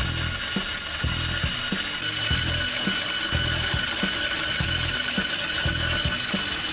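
Electric hand blender with a whisk attachment running steadily, with a high whine, as it whips cream in a glass bowl. The cream is thickening towards stiff whipped cream.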